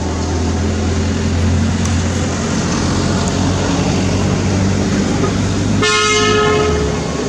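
A motor vehicle's engine runs with a steady low hum, then a vehicle horn sounds once, a single flat tone lasting about a second, near the end.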